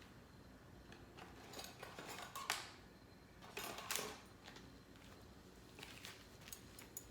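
Faint, scattered clinks and rustles of cooking gear being handled, with louder brushing clatters about two and a half and four seconds in.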